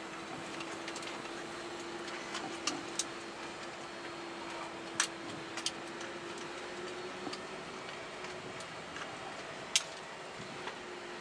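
Airbus A330 flight-deck noise while taxiing: a steady hiss with a steady hum tone, broken by scattered sharp clicks. The loudest clicks come about five seconds in and near the end.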